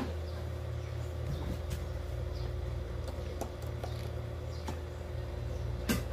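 Faint clicks and knocks as a rice cooker and its power cord are handled, over a steady low hum, with one sharper click near the end.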